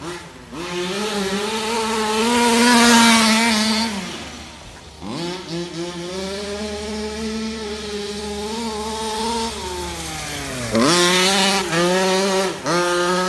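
Losi 5ive-T 1/5-scale RC truck's 30.5cc OBR two-stroke gas engine running under throttle as it drives. It revs up hard about two seconds in, drops off near four seconds, picks up again and holds a steady middle speed, then twice near the end comes briefly off the throttle and straight back on.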